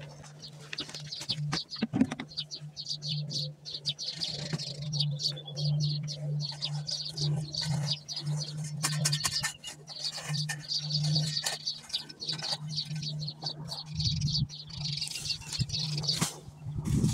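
Birds chirping and twittering, with many short high calls, over a steady low hum.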